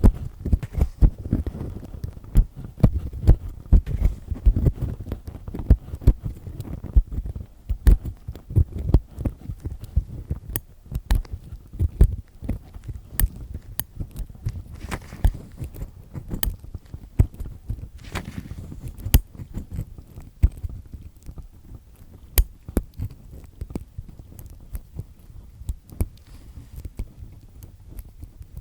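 Close-miked ear-cleaning sounds: an earpick with a black triple-disc tip scraping and grinding, heard as irregular crackly scratches and dull low thumps several times a second.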